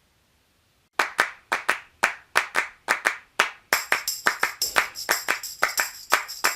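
Background music starting after about a second of silence: a rhythmic hand-clap beat, joined about halfway through by a jingling tambourine.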